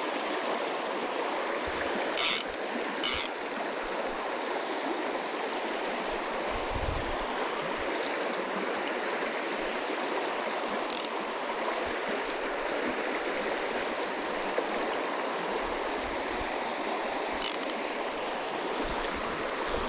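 Small mountain creek running steadily over rocks, a constant rush of water. Four short high-pitched sounds cut through it, two close together near the start, one midway and one near the end.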